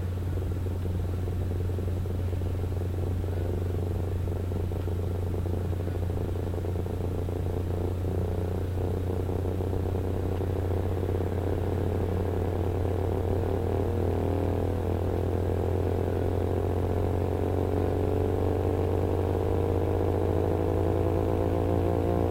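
Low-frequency hearing-test tone: a steady low hum, with a set of higher tones slowly rising in pitch from about two-thirds of the way through.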